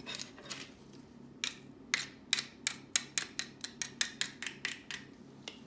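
A metal fork scraping and tapping against the metal grid of a garlic press to knock the crushed garlic into a bowl. It makes a quick run of sharp clicks, about four a second, starting about a second and a half in and lasting some three and a half seconds.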